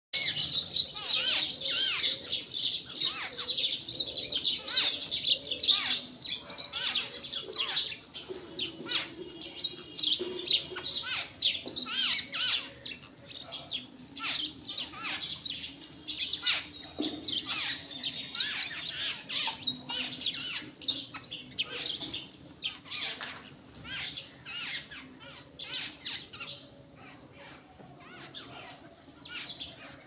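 A flock of babblers chattering: a dense run of rapid, harsh, squeaky calls from several birds at once, thinning out over the last several seconds.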